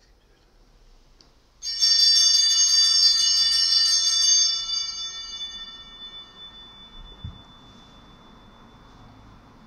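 A bell with several high ringing tones, shaken rapidly for about three seconds and then left to ring out and fade.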